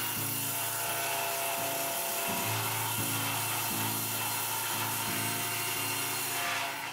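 Table saw blade ripping through a sheet of MDF with a steady, hissing cut that stops abruptly near the end as the cut finishes. Background music plays underneath.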